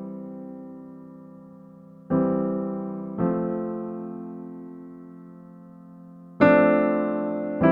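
Background music: slow solo piano, full chords struck three times a few seconds apart, each left to ring and fade.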